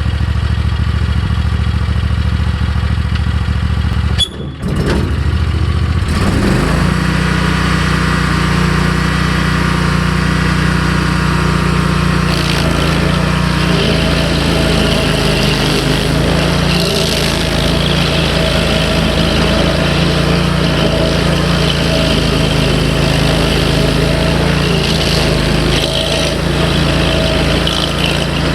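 Rayco RG37 stump grinder's engine running loud. The sound dips briefly about four seconds in, then the engine rises to a higher steady speed. From about twelve seconds it runs on with a rougher, busier sound.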